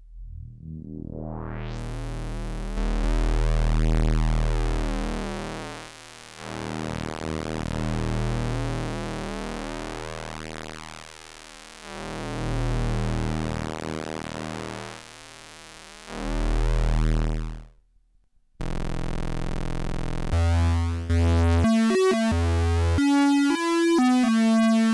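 Korg ARP Odyssey analog synthesizer played dry, straight from its output. A low, buzzy bass tone swells and fades about every four seconds as its filter opens and closes. It cuts off about three quarters of the way through, then gives way to a run of separate notes stepping between pitches.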